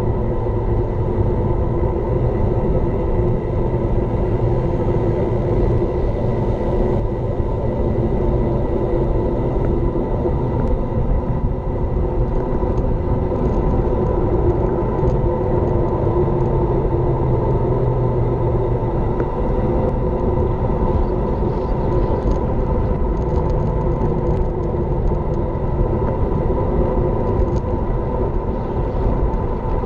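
Steady rumble of wind buffeting an action camera's microphone on a road bike riding at speed, mixed with tyre noise on asphalt and a faint steady hum.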